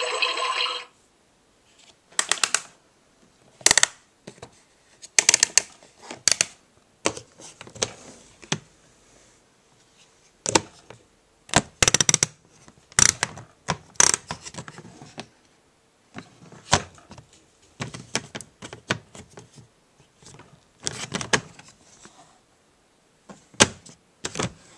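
Plastic parts of a Fisher-Price Grow with Me Cook and Care toy kitchen being handled: irregular sharp clicks and knocks, some in quick clusters, as knobs, doors and pieces are moved. A toy electronic sound cuts off just under a second in.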